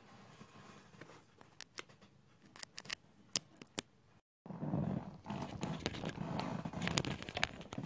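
Handling noise from a phone and a clip-on lavalier microphone: scattered clicks and taps as the mic's plug is fitted, a brief total dropout a little over four seconds in as the audio switches over, then louder rustling and scraping of the mic rubbing against clothing.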